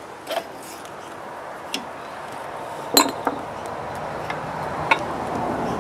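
Light metallic clicks and clinks of circlip pliers and a new circlip against the splined driveshaft as the circlip is fitted; about five clicks, the sharpest about three seconds in.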